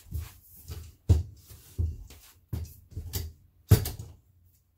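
Metal folding step stool being worked to fold it: a series of about seven knocks and clanks, the loudest about a second in and near the end.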